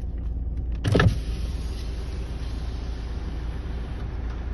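Steady low rumble of a car idling, heard from inside the cabin, with one short loud knock about a second in; a faint steady high hiss carries on after it.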